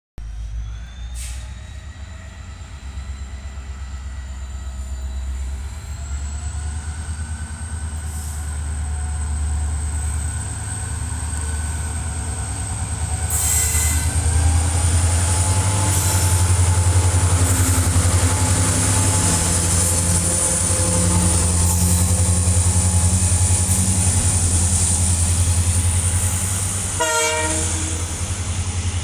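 WDG-4 diesel-electric locomotive's turbocharged two-stroke 16-cylinder EMD engine running with a deep steady hum. A thin high turbocharger whine climbs in pitch over the first half and then holds, and the engine gets louder about halfway through as it throttles up.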